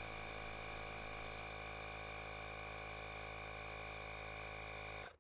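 Milwaukee M12 compact inflator's compressor running steadily, a level hum with many tones, as it pumps up a bicycle tire toward a 33 psi setting. The hum cuts off suddenly near the end.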